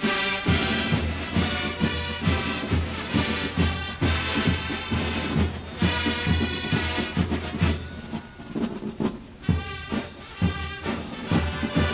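Drum and bugle corps playing: brass bugles over a marching drum line keeping a steady beat, the music easing back somewhat about eight seconds in.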